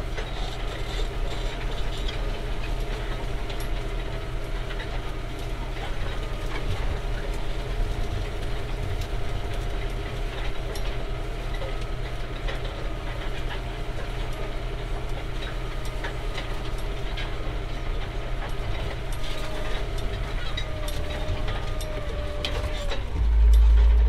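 Massey Ferguson 5713S tractor engine running steadily under load while pulling a four-furrow plough through stubble, with scattered clicks and rattles. A louder low rumble comes in suddenly near the end.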